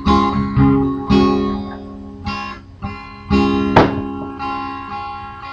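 Acoustic guitar strummed, chords struck and left ringing between strokes, with a sharp strum a little before four seconds in and a long fade after it.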